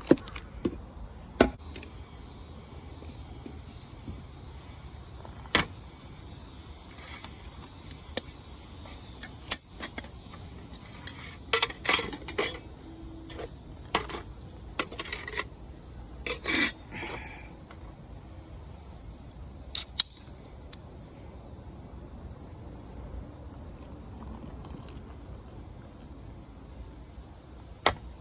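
A steady, high-pitched chorus of summer forest insects, with scattered short knocks and clicks over it.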